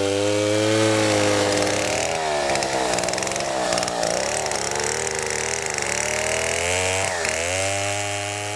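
Petrol two-stroke chainsaw cutting lengthwise through a timber baulk, its engine running near full throttle with the pitch sagging and recovering as the chain loads up in the wood, most sharply about seven seconds in.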